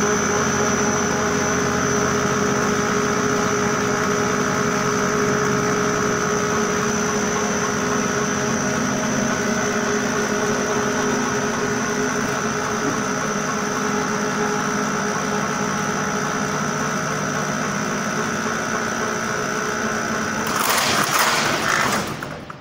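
Machinery of a hollow-core wall panel production line, driven by an electric motor, running with a steady hum and a held whine. Near the end the whine stops and a short rushing noise follows, then the sound falls away.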